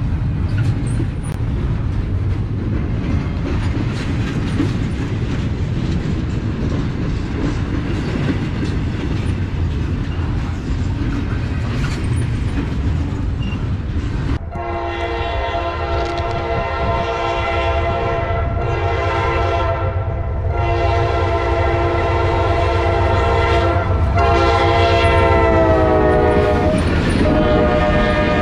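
A double-stack intermodal freight train running past on the rails. About halfway in, a Norfolk Southern diesel locomotive's air horn starts sounding over it in several long blasts with short breaks, dropping in pitch near the end.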